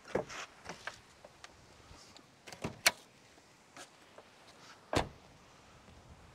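Driver's door of a BMW E39 5 Series being opened, with sharp latch clicks as the bonnet release inside is worked (the loudest near three seconds in), then the door shut with a solid thump about five seconds in.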